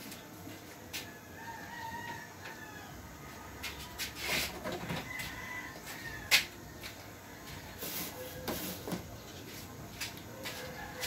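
Chickens calling: a rooster crowing and hens clucking, with one sharp knock about six seconds in.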